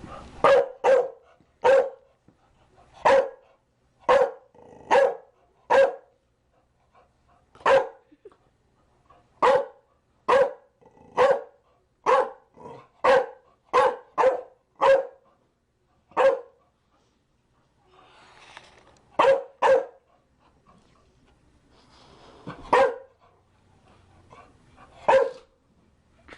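A Chow Chow barking repeatedly: about twenty single barks, some in quick pairs, roughly one a second, with a pause of a few seconds past the middle and only a few spaced barks near the end.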